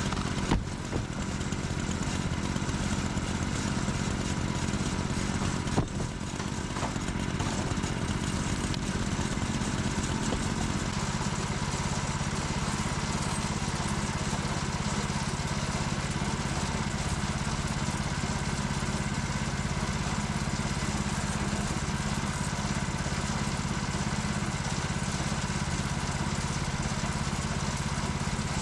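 An engine running steadily, with two sharp knocks in the first six seconds and a slight change in its note about eleven seconds in.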